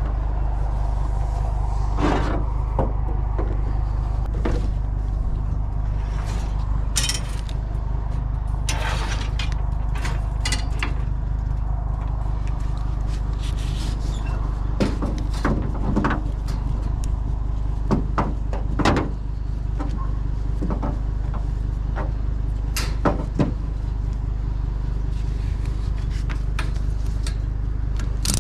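Irregular knocks, clicks and short scrapes of scrap items being shifted and strapped down on a truck's load, over a steady low rumble.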